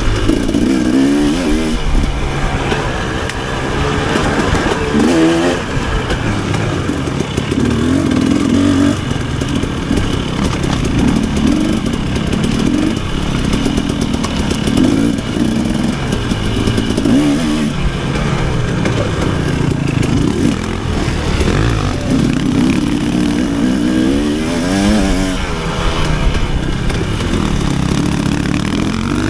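Off-road dirt bike engine revving up and down over and over as the throttle is opened and closed and gears change.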